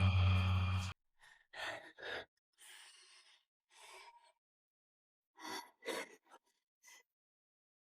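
Background music cuts off about a second in, followed by a series of short breathy gasps and sighs from a person, several of them spaced irregularly.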